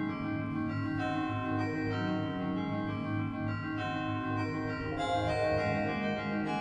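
Background music of held keyboard chords, changing to a new chord every second or so.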